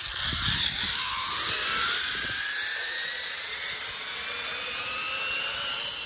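Zip-line trolley pulleys running along the steel cable, a high steady whine with a second tone rising in pitch as the ride goes on. Some low rumbling in the first two seconds or so.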